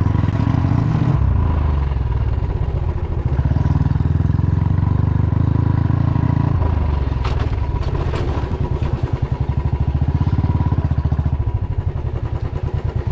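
Motorcycle engine running under way, a rapid low pulsing that eases and picks up again a few times, with a few clicks about halfway through.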